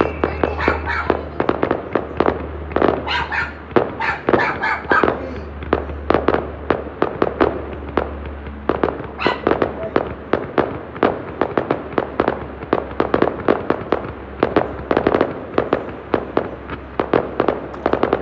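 A fireworks display going off: dense, rapid popping and crackling, several bangs a second, with a low steady rumble underneath.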